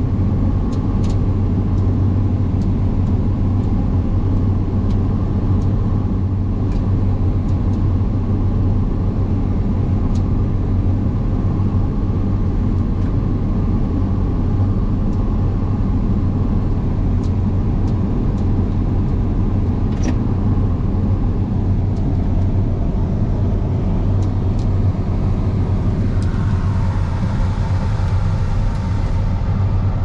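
Steady low drone of a 690 hp John Deere X9 1100 combine at work, heard inside its cab, with a few faint ticks.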